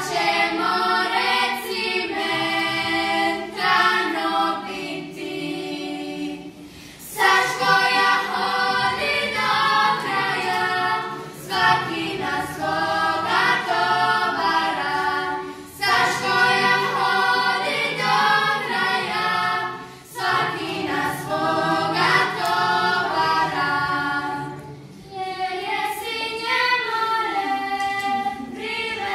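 Girls' klapa group singing a Dalmatian song in several-part close harmony, in long held phrases with short breaks for breath between them.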